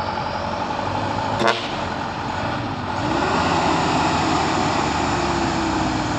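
Diesel truck engines running, one rising in pitch about three seconds in and holding at higher revs as a recovery truck works its crane or winch. A single short sharp pop about a second and a half in.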